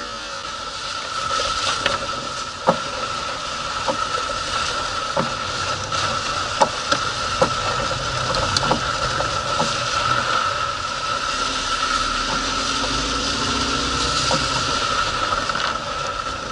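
Rear suspension of a Ford Focus 2 knocking over bumps while driving: sharp irregular knocks, a second or more apart, over steady road and tyre noise. The owner blames worn rear control arms and silent blocks, or the rear anti-roll bar links.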